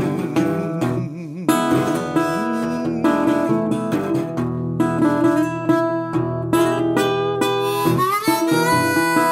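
Acoustic bluegrass-style music: picked acoustic guitar under a harmonica playing a held, bending melody line.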